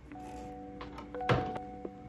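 Soft background music with held notes, and a single dull thunk a little over a second in as a PC power supply unit knocks against the case while it is being fitted.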